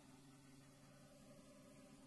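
Near silence: a faint, steady hiss with a low hum.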